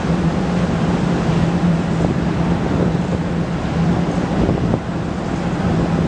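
A steady low motor hum under a rushing, wind-like noise.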